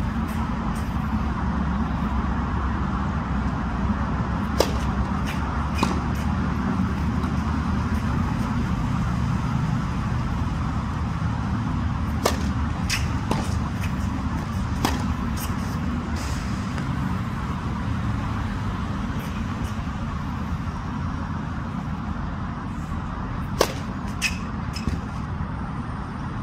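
Tennis ball bouncing on a hard court and being struck by a racket during serve practice: a few sharp pops in three groups over a steady low outdoor rumble.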